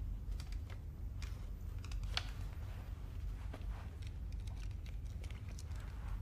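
Low, steady room rumble with scattered small clicks and rustles of handling, as a pair of wire-rimmed glasses is slowly taken off; one sharper click comes about two seconds in.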